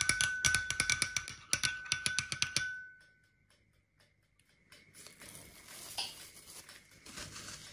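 A ceramic spoon clinks rapidly against a glass bowl while whisking egg yolk and milk, leaving the glass ringing; the clinking stops about two and a half seconds in. After a short pause, plastic cling film crinkles faintly as it is peeled off risen bread rolls.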